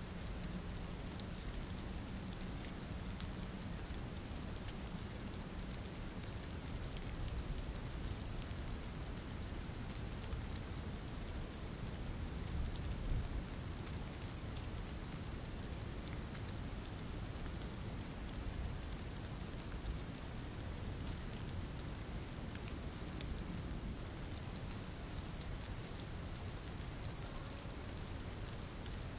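Steady rain falling, with many small sharp drop ticks scattered through it.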